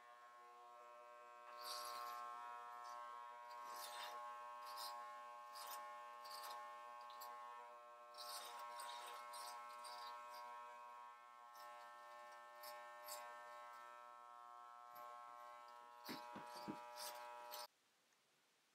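Corded electric hair clippers buzzing steadily while cutting a toddler's short hair, with frequent short crackles as the blades pass through the hair. The buzz cuts off abruptly near the end as the clippers are switched off.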